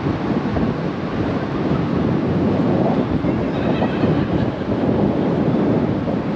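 Steady wind buffeting the microphone aboard a moving water taxi, over the rush of water along the boat.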